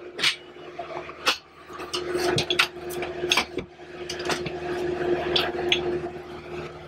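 Aluminium load lock bar being handled and set between the walls of a trailer: a string of metal clicks, clanks and scrapes, over a steady hum.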